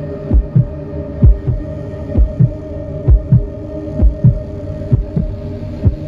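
Heartbeat sound effect: a steady lub-dub double thump, a little under one beat a second, over a steady low hum.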